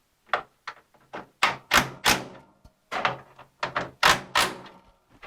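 An irregular run of sharp knocks and taps on the 1957 Chevy's steel hood, about fourteen in five seconds, some followed by a brief metallic ring. The knocking shakes loose rust out of the hood.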